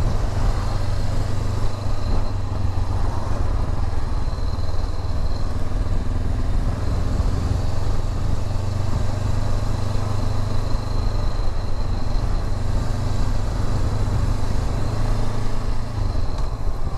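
Honda CB500X's parallel-twin engine running steadily at low road speed, heard from on board the motorcycle, with a rush of air noise over it.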